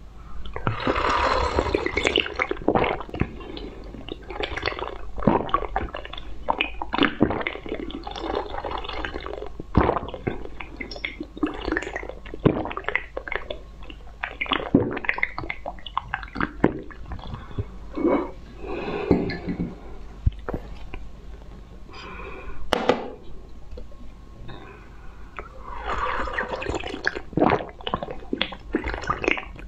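Close-miked slurping, sipping and swallowing of a drink, with wet mouth clicks coming in irregular bursts. Near the end, sucking the contents out of a glass test tube.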